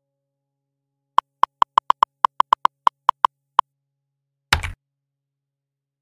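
Keyboard-typing sound effect: about fourteen quick, crisp keystroke clicks at an uneven typing pace over roughly two and a half seconds, followed about a second later by one short whoosh-like hit.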